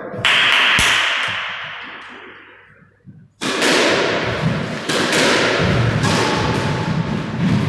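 Squash rally: repeated sharp cracks of the ball off the racket and the court walls, about two a second, starting suddenly a little over three seconds in. Before it, a loud hiss starts abruptly and dies away over the first three seconds.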